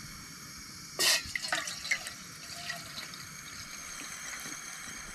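Water poured from a plastic bottle into a stainless steel pot. It starts with a loud splash on the empty pot's bottom about a second in, then runs as a steady pour.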